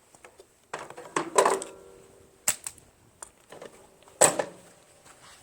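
Handling clatter while working on a lawn tractor: a run of clicks and knocks. The loudest comes about a second and a half in, with a short ringing tone after it, and another sharp knock follows about four seconds in.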